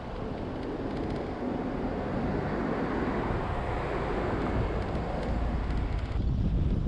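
Car driving along a road: steady tyre and road noise mixed with wind on the microphone, growing gradually louder, then turning deeper about six seconds in.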